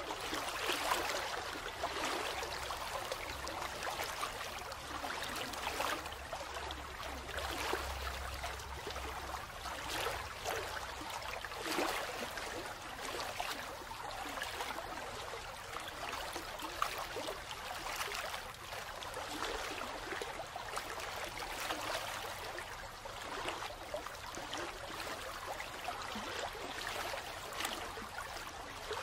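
Steady sound of running water, like a flowing stream, rising and falling slightly in level, used as the background bed of a subliminal audio track. A faint low hum sits under it during the first third.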